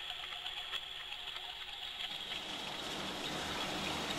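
Faint rushing water, a steady hiss-like wash that swells slightly in the second half.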